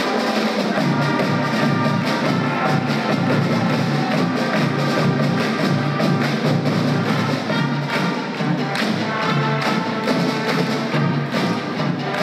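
Music with a steady beat, brass and percussion.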